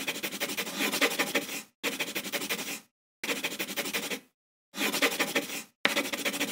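Scribbling sound effect: five bursts of rapid scratchy strokes, each about a second long, with short silences between.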